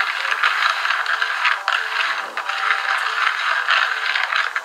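Plastic bag of David Original Jumbo sunflower seeds crinkling as a hand handles it: a dense, loud crackle that stops just before the end.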